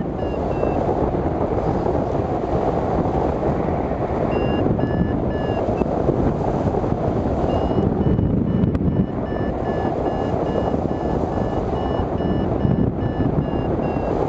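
Wind rushing over the microphone of a hang glider in flight, with a variometer's electronic beeps coming in stretches of quick, evenly spaced pips: the sign that the glider is climbing in lift.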